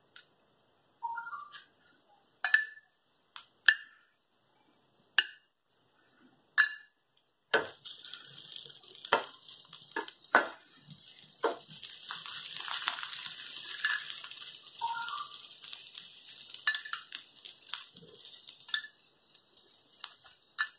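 Sharp metallic clinks of utensils against an iron tawa, spaced a second or so apart. About seven seconds in, a steady sizzle of ghee frying bread slices on the hot griddle starts, with more knocks as the slices are turned.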